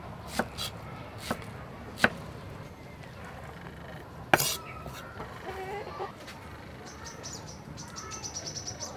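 About five sharp, separate knocks of a knife on a wooden chopping board, the loudest about four seconds in. Birds chirp in the background, with a fast high trill near the end.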